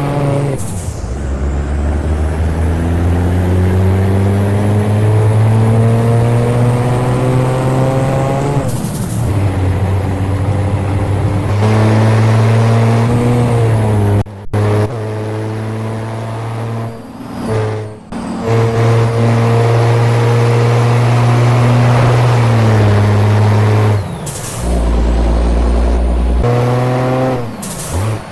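Scania V8 truck engine with a straight-through exhaust, loud throughout. The engine note climbs for several seconds, drops back abruptly a few times and then holds steady for stretches. Several short hisses of air cut in along the way.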